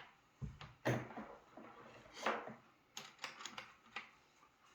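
Irregular metal clicks and clinks of a nut, bolt and washers being worked by hand and tool while a hanger bracket is tightened onto a nail gun, with a handful of sharper knocks spread through and a quick cluster about three seconds in.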